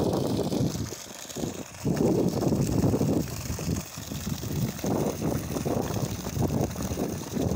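Wind buffeting the microphone in uneven gusts, over the steady rush of water pouring from a borewell's discharge pipe onto the ground.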